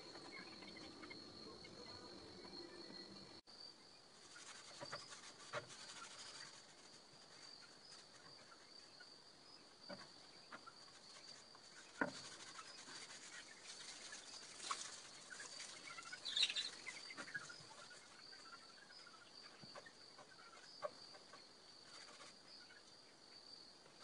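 Faint, steady high chirring of crickets, with a few scattered sharp clicks and taps.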